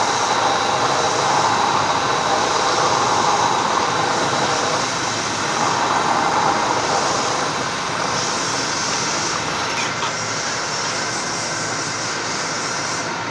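Vertical milling machine running, its cutter working into a small metal block held in a vise, with a faint steady high whine. The noise eases slightly about eight seconds in as the cutter is raised clear of the part.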